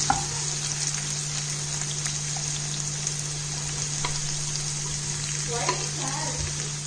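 Sliced onions sizzling in hot coconut oil in a nonstick kadai as they are added and stirred, a steady frying hiss with a few sharp clicks of the spatula against the pan.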